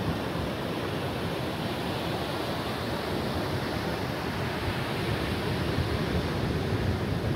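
Ocean surf washing on a beach: a steady rushing noise, a little stronger near the end.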